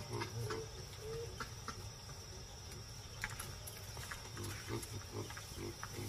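Faint natural ambience: a steady insect chorus, with wavering animal calls in the first second or so and a few short, low grunts between about four and five and a half seconds in.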